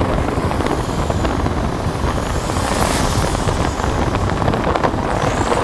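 Vehicle driving at road speed: steady engine, tyre and road noise with wind on the microphone.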